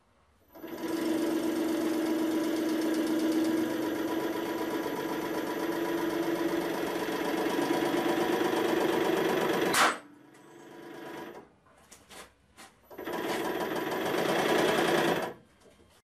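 Hydraulic press pump and motor running steadily as the ram crushes a 12 g CO2 cartridge, ending about ten seconds in with one sharp, loud crack as the cartridge gives way. A few seconds later the press motor runs again for about two seconds.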